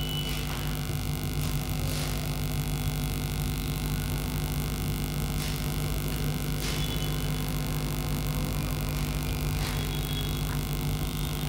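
Steady electrical mains hum and hiss, with a few faint brief scrapes or taps scattered through.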